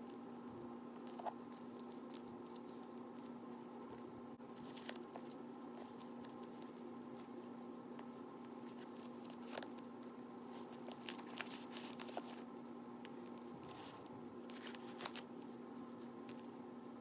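Faint handling noises over a steady low hum: soft crinkling of protective plastic wrap and tape being peeled off a new leather bag, with scattered small clicks, most of them in a cluster in the middle and a few more near the end.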